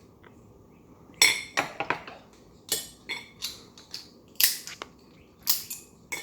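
Cooked blue crab shell being cracked and snapped apart: a series of sharp, irregular cracks and clicks.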